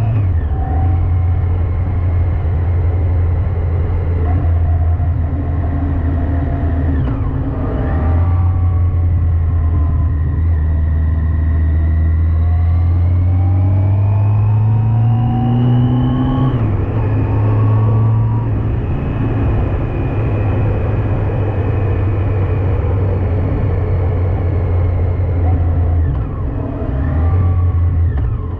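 Yamaha FJR1300AE's inline-four engine pulling the bike along the road, its note climbing with speed and dropping back at gear changes about 7, 16 and 26 seconds in, over steady wind and road noise.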